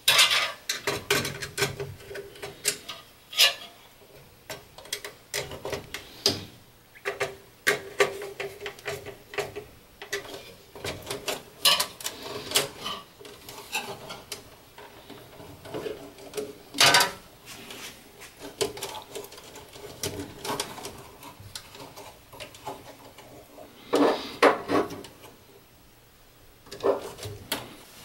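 Irregular clicks, taps and rustling as a green ground wire is worked through plastic wiring duct in an electrical control panel and fastened into a terminal block. The sharpest clicks come about two-thirds of the way in and again near the end.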